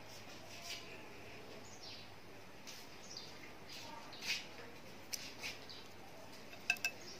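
Quiet outdoor background with scattered short bird chirps, a few of them falling in pitch. Near the end come two sharp, louder chirp-like clicks in quick succession.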